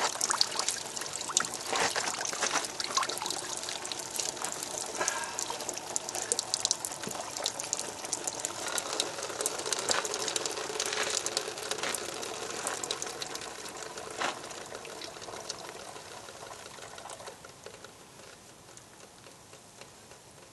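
A 12-inch lapidary drop saw's water-cooled diamond blade cutting through petrified wood, with water spraying and spattering off the blade and many small crackles. The sound drops away a few seconds before the end as the cut is finished and the slab comes off.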